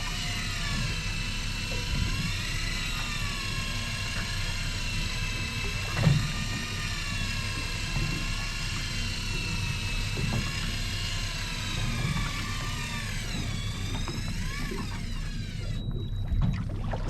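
Electric fishing reel winding in a hooked fish, its motor whine wavering in pitch as the load changes, over the low drone of the boat's engine. The whine cuts off suddenly near the end as the rig reaches the surface.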